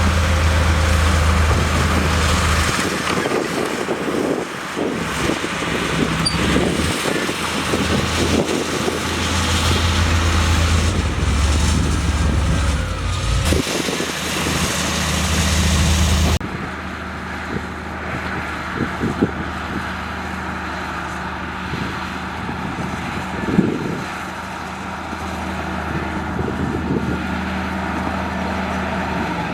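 Diesel engine of heavy earthmoving machinery running, with scattered clanks and knocks. A little over halfway through, the sound changes suddenly to a quieter, steadier engine note.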